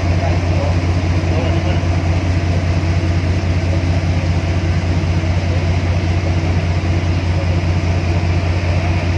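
Watercraft engine running steadily at cruising speed: a deep, even hum that does not change.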